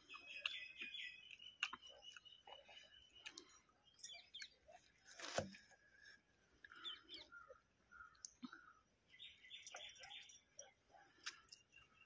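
Small birds chirping, with quick trilled runs of high notes near the start and again about three-quarters through. Faint scattered clicks, one sharper click about halfway through.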